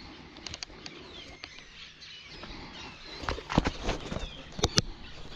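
Small birds chirping in the background, with a cluster of sharp knocks and clicks about three to five seconds in.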